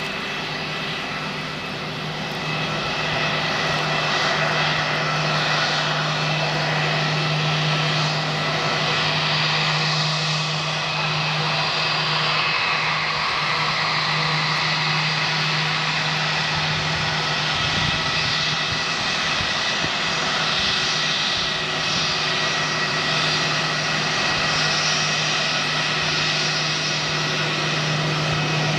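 Airbus A320-232's IAE V2500 turbofan engines at taxi power: a steady jet whine over a broad hiss, with a constant low hum underneath.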